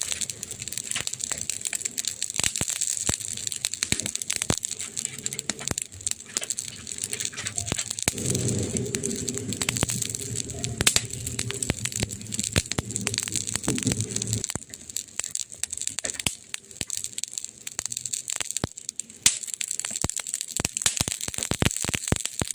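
Burning wood crackling in a fireplace, a dense run of snaps and pops over a steady hiss. A low steady hum joins for about six seconds midway through.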